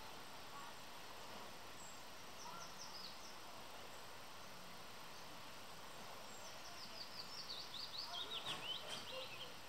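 A small songbird singing: a short phrase of high chirps about two and a half seconds in, then a longer, louder run of quick chirps falling in pitch over the last three seconds, against a steady faint hiss.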